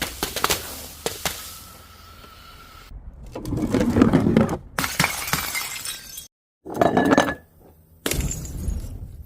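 Glass bottles breaking: sharp cracks near the start, then several bursts of shattering and crunching glass, each clip beginning and ending abruptly.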